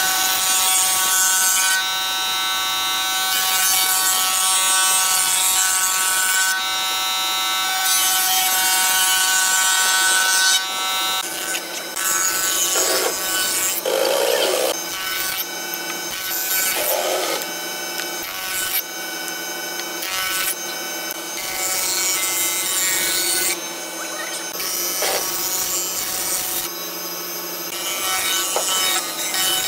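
Wood being worked. For about the first eleven seconds a power tool runs with a steady whine as it cuts or sands. After that come irregular rubbing, rasping strokes of a tool on wood, with short gaps between them.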